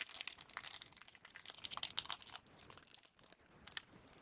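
A 1997-98 Fleer Ultra basketball card pack's wrapper crinkling as it is torn open: a dense crackle for about two and a half seconds, then a few scattered clicks and rustles.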